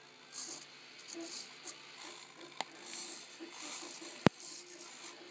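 TG9e micro servos whirring in short bursts as they swing the eyes of a 3D-printed animatronic eye mechanism, with a sharp click about four seconds in.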